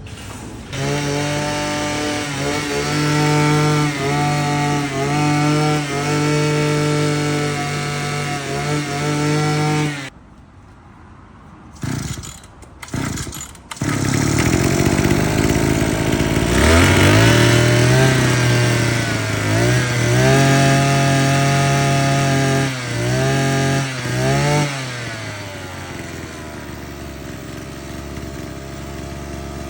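BG430 brush cutter's two-stroke engine running on its freshly fitted cylinder block and piston kit, its speed briefly dipping and recovering; it stops about ten seconds in. After a few short bursts it catches again with a rising note a few seconds later, is revved up and down several times, and settles to a lower, steadier run for the last few seconds.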